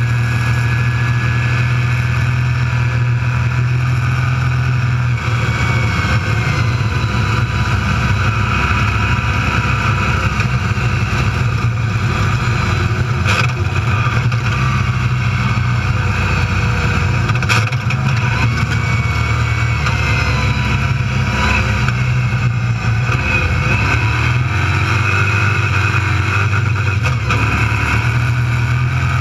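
Desert race car driven at steady speed, heard from inside its open cockpit: the engine runs loud and even over road and chassis noise, with a couple of sharp knocks from the car about 13 and 17 seconds in.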